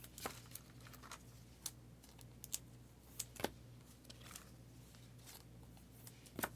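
Faint rustling and light clicks of trading cards and packaging being handled, with a handful of sharper ticks scattered through.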